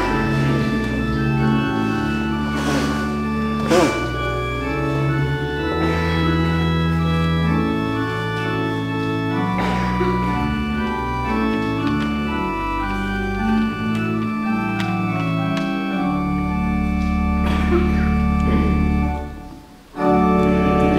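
Church organ playing the introduction to a hymn in slow, sustained chords over a held pedal bass. It breaks off briefly near the end, then starts again as the hymn begins.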